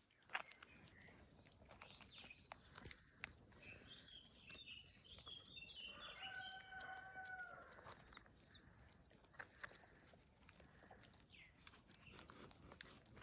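Faint birds chirping, with a quick high trill and one long steady call about six seconds in. Light scratches and clicks from puppies pawing at a plastic bucket of grain.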